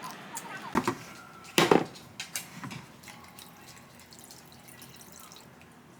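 A few short knocks and clatters with dripping water, the loudest knock about one and a half seconds in, then a low steady background: kitchen sounds.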